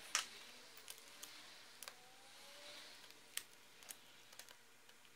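Small clicks and ticks from handling laptop parts and driving screws with a hand screwdriver. A sharp click comes right at the start, then about half a dozen fainter, irregular ticks.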